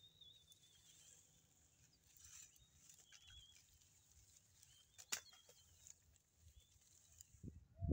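Near silence: faint outdoor ambience with a soft high hiss, a few faint high chirps, and a single sharp click about five seconds in.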